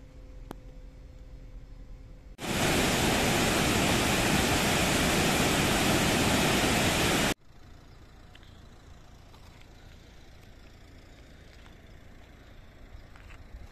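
Roar of a large waterfall heard close up: a loud, even rush of water lasting about five seconds that starts and stops abruptly. Before it there is a faint steady low hum, and after it only faint outdoor background noise.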